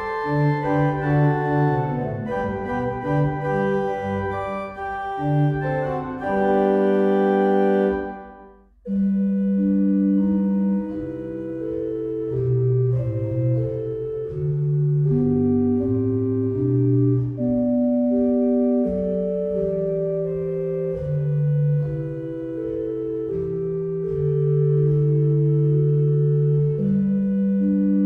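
Two-manual electronic home organ being played: a piece closes on a held chord that dies away about eight seconds in, and after a brief gap the organ starts again with long sustained chords over a moving bass line.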